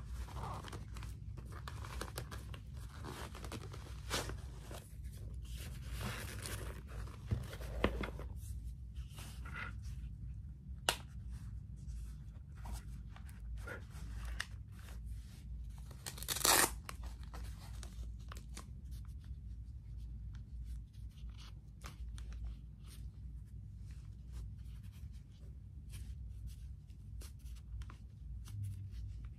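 Knox Handroid leather motorcycle gloves being handled and flexed: leather and hard plastic armour rubbing, with irregular small clicks and one louder, sharper scrape a little past halfway.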